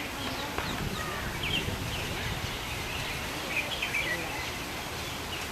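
Small birds chirping now and then over a steady outdoor background hiss.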